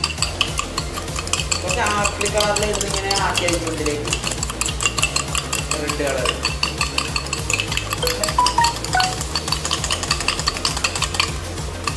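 Metal spoon stirring briskly in a stainless steel tumbler: a rapid, continuous clinking and scraping against the tumbler's sides.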